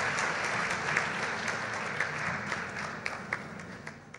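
A large audience applauding, with dense clapping that fades away toward the end.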